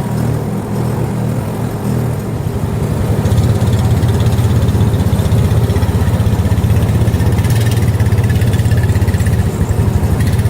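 An engine running steadily with an even low throb. It grows louder about three seconds in and then holds level.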